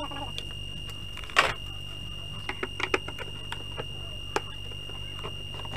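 A few scattered clicks and knocks, the loudest about a second and a half in, as the plastic back cabinet of a CRT television is handled to be opened. Under them runs a steady high-pitched tone and a low hum.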